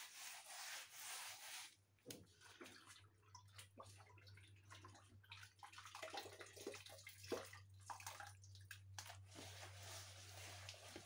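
Faint wet rubbing of a hand smearing a mix of red clay and cow dung over a mud wall, in uneven strokes that are loudest for the first couple of seconds.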